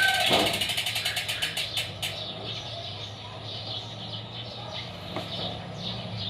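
Sword rear bicycle hub (6 pawls, 3 teeth) freewheeling as the wheel coasts: a fast ratcheting buzz of pawl clicks that slows into spaced-out clicks and stops about two seconds in. Birds chirp after it.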